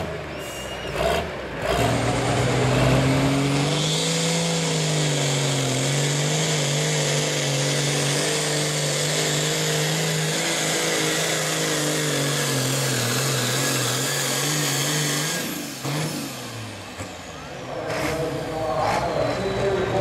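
A super farm class pulling tractor's turbocharged diesel engine run hard through a pull, one steady engine note with a high turbo whine over it. About three-quarters of the way through, the pitch falls away as the tractor throttles down at the end of the pull.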